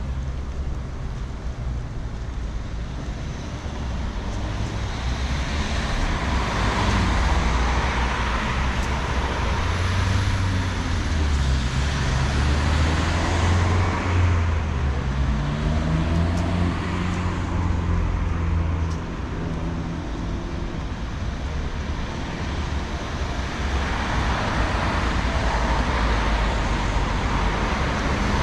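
Street traffic: cars passing close by, swelling and fading twice. Around the middle one vehicle's engine speeds up, rising in pitch as it pulls away.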